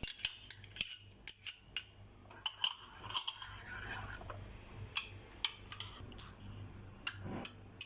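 A utensil clicking and scraping against a bowl while stirring a creamy mayonnaise dressing, in irregular light clinks.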